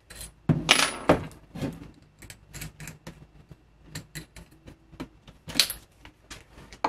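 Irregular clicks and clatter of a bit being changed in a DeWalt cordless drill's keyless chuck, with louder knocks near the start and one about three-quarters of the way through.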